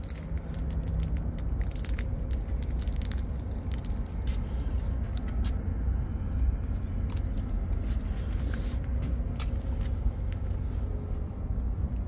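Steady low rumble with scattered light clicks and ticks throughout.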